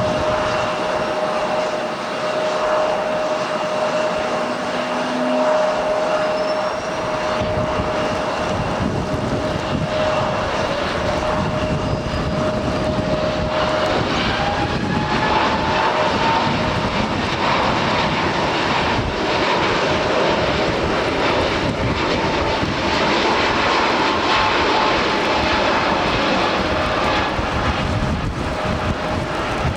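Jet airliner engines running, a steady whine over dense engine noise, with a second, higher tone gliding slowly upward about halfway through.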